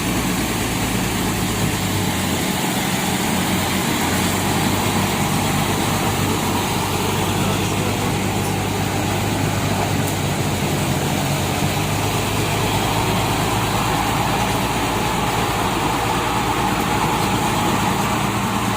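Heavy diesel engines of a Kobelco excavator and a tronton truck running as the excavator tows the truck, which is stuck on a slick road. A steady low engine hum whose pitch shifts slightly about two seconds in.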